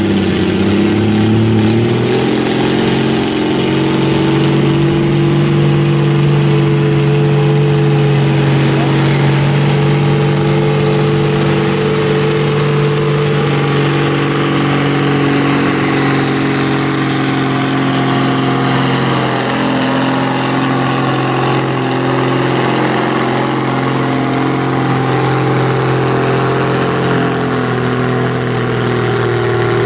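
Oliver 88 tractor's six-cylinder engine running hard under load as it drags a weight-transfer sled, at a steady pitch that dips a little past the middle and picks up again near the end.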